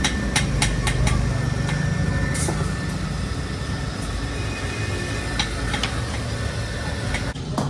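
Steady drone of workshop machinery with hammer strikes on metal during sickle forging. The strikes come about three or four a second for the first second or so, and a few single clanks follow later.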